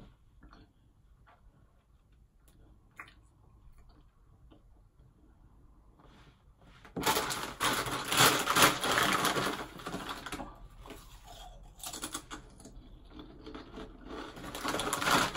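A few faint taps, then about seven seconds in a plastic snack bag crinkles loudly as it is handled and opened, a dense crackling that eases after a few seconds and returns in shorter spells near the end.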